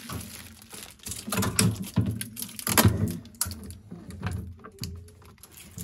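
Irregular light clicks and rattles as a chest freezer's white wire basket and the plastic-bagged accessories in it are handled, thickest in the first half.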